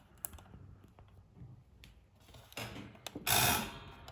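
Handling of the small freshly soldered metal pendant: a few faint clicks, then a short rubbing scrape about three seconds in.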